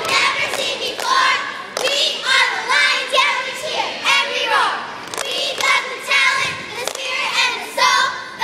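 A squad of young girl cheerleaders chanting a cheer in unison, line after line, with a few sharp claps between phrases.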